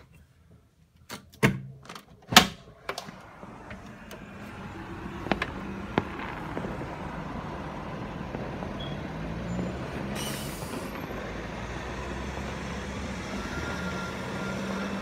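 Several sharp knocks and bangs in the first three seconds, the loudest about two and a half seconds in. After that a steady low rumble builds, with a few distant firework cracks and a brief hiss about ten seconds in.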